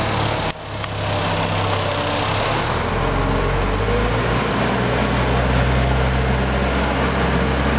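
Skid steer loader's engine running steadily, with a brief sudden drop in level just after half a second in and a shift in its low note about three seconds in.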